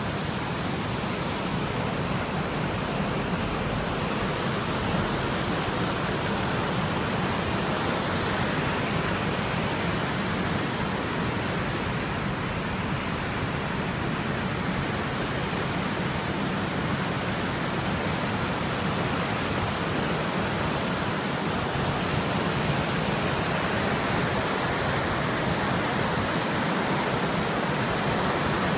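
Creek in flood rushing over a low-water road crossing: a steady rush of fast, high whitewater that holds even throughout.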